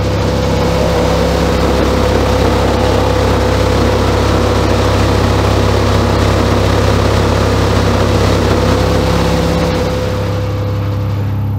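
A giant home-built transparent-cone subwoofer playing a steady 34 Hz sine wave, heard as a loud, steady low hum with overtones. The tone sits at the room's resonant frequency, so the windows are rattling like crazy, a dense buzzing over the hum. It eases slightly about ten seconds in.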